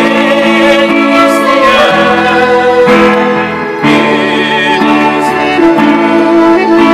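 Electronic keyboard played live through a PA speaker: held chords that change every second or so.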